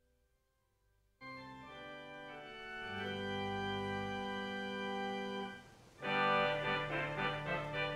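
Organ music: faint held notes, then a sustained chord comes in about a second in and swells. It breaks off briefly near the end, and a louder, fuller passage with regularly repeated chords begins.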